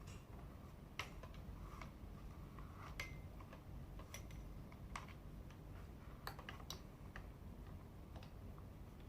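Ring light parts being handled and fitted: scattered light clicks and taps, about ten at irregular intervals.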